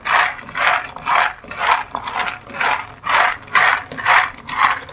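Shelled peanuts being stirred in a frying pan with a wooden spatula, rattling and scraping across the pan in even strokes about twice a second as they roast.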